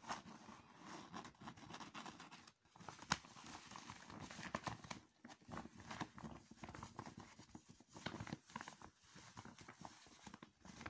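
Glossy laminated plastic reusable shopping bag being handled and turned over by hand, its stiff material crinkling and rustling in irregular crackles, with one sharper click about three seconds in.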